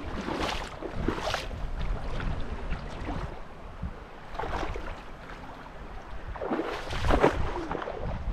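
Spring runoff water rushing and splashing, with wind rumbling on the microphone; the water noise surges unevenly and is loudest about seven seconds in.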